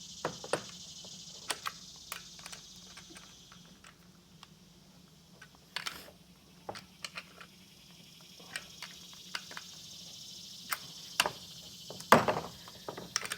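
Scattered metallic clicks and taps of a chainsaw wrench turning the bar-cover nuts as the guide bar is tightened down, with a short flurry of louder clicks near the end. A steady high hiss and faint hum run underneath.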